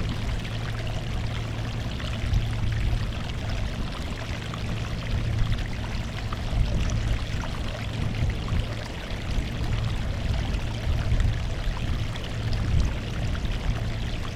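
Sea waves washing steadily onto the shore, the splash swelling and easing every second or two over a low constant rumble.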